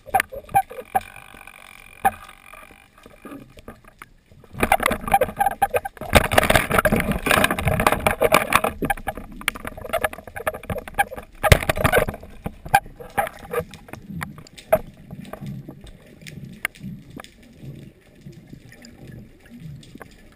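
Water rushing and gurgling against an underwater camera housing as a spearfisher swims over the seabed, with scattered clicks and knocks. A dense rush of water noise is loudest from about four to twelve seconds in, then eases to softer, pulsing swishes.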